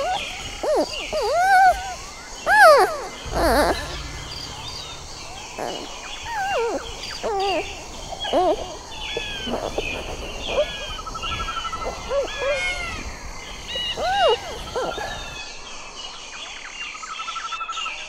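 Giant panda chirping and squeaking: many short calls that rise and fall in pitch, often overlapping, the loudest in the first few seconds, with a quick trill twice.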